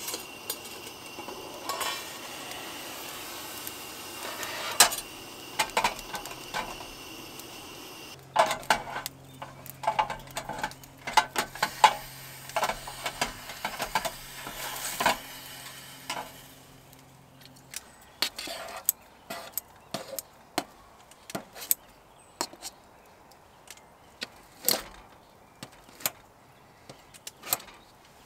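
Metal cookware and utensils clinking and clattering in sharp, scattered knocks, busiest in the middle and sparser near the end. A steady hiss lies under the first eight seconds or so and stops suddenly, and a low steady hum runs through the middle stretch.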